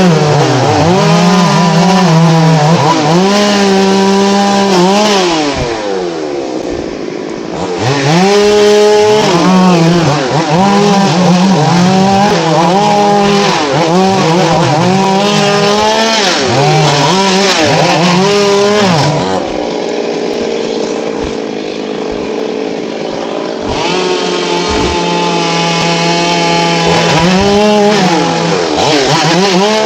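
Two-stroke chainsaw cutting into a thambakam tree, its engine note repeatedly dipping and climbing back. It eases to a quieter, lower running twice, about six seconds in and about twenty seconds in.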